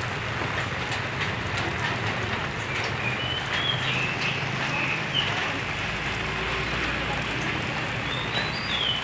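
Steady rain hiss during a windstorm, with a few short high chirps scattered through it.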